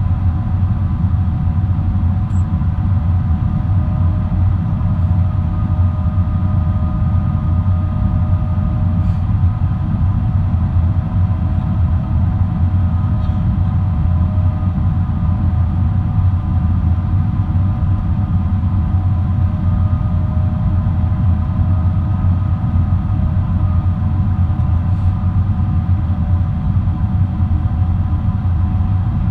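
Steady in-flight noise of a Boeing 777-300 heard from inside the cabin: a constant low rumble of the engines and airflow with several steady engine tones humming above it.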